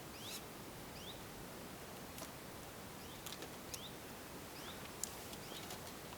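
A small bird repeating a short, rising chirp about once a second over quiet outdoor ambience, with a few sharp clicks in between.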